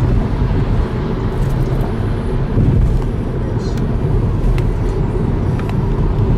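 Steady road and engine noise of a vehicle driving at speed on an expressway, with a few faint ticks.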